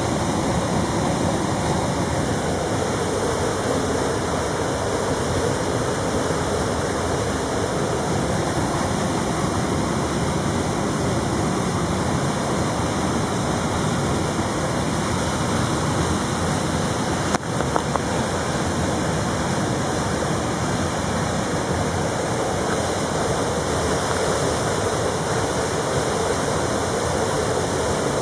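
Steady rushing of running water, an even noise that does not change. A single brief knock comes about two-thirds of the way through.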